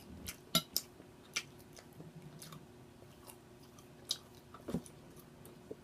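Close-miked eating sounds of a woman chewing a mouthful of chicken and noodles: soft chewing with scattered sharp, wet mouth smacks and clicks, a few of them louder.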